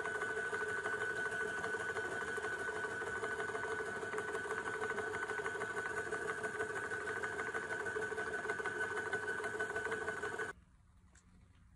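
Motor-driven DIY shaking sluice table running, a steady whine with a fast rattle, that cuts off suddenly near the end.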